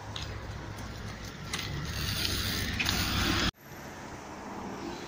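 Dirt jump bike rolling over stone edging, its freewheel ratchet clicking over steady tyre noise. The sound breaks off abruptly about three and a half seconds in and resumes more quietly.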